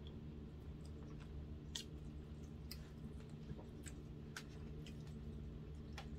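A person chewing a mouthful of soft food close to the microphone, with short wet mouth clicks and smacks about once a second, over a low steady hum.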